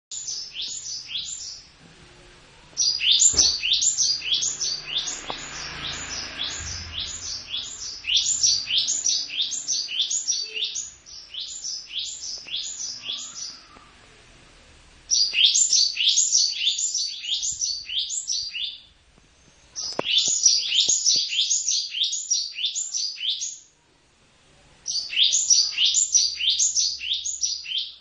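A caged cinereous tit (gelatik batu) singing in long, fast strings of sharp, high chirps that sweep downward, about three notes a second. The strings are broken by short pauses, with a couple of faint knocks.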